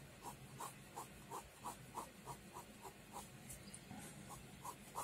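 Pen drawing on paper: a faint run of short scratching strokes, about three a second, with a brief lull a little after the middle.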